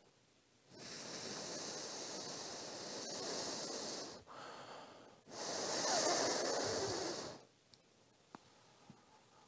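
A person blowing on freshly glued parts to dry the glue: two long blows of about three and two seconds, the second louder, with a short, weaker breath between them.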